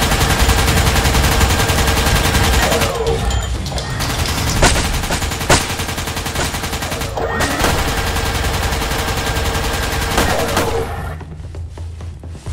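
Dubbed machine-gun fire sound effect in long, rapid sustained bursts, with a whine that rises as the firing starts and falls away as it stops, over background music.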